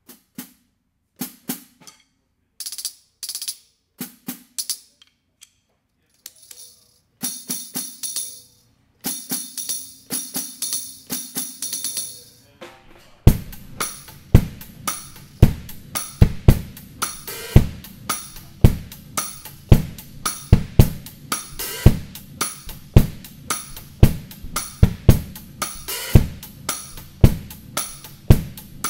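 An LP Click Hi-Hat Tambourine, a plastic frame with nickel-plated steel jingles mounted on a hi-hat stand, struck with drumsticks: first sparse, short hits, then hits where the jingles ring on. About 13 seconds in, a full drum-kit groove starts, with bass drum and snare under the tambourine and hi-hat.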